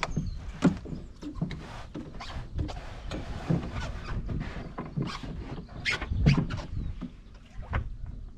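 Irregular knocks, thumps and scrapes as a man climbs from a wooden jetty into a canoe, sits down and shifts his weight, with the hull and gear bumping against the boards; the loudest knocks come around six seconds in.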